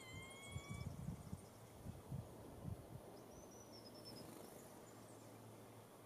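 Diamond firetail gives one drawn-out, slightly rising whistle lasting nearly a second, followed by a few soft low bumps. A faint, high, falling whistle from another bird comes midway.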